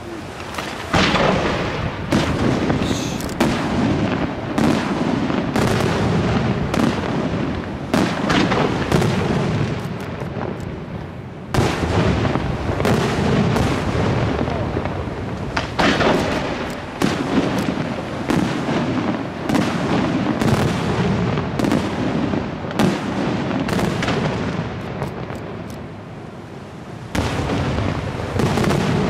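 Aerial firework shells bursting in rapid succession: a dense barrage of sharp bangs and booms over continuous crackling, easing briefly near the middle and again near the end before building back up.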